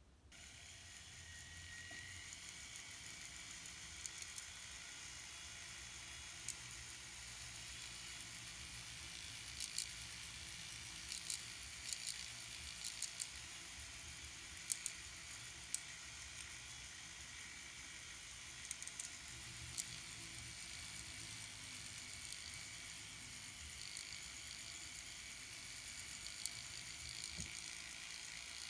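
Flex-shaft rotary tool spinning a pink silicone polishing wheel against sterling silver wire, grinding out tool marks: a steady hiss over a low hum, with scattered short ticks as the wheel catches the wire.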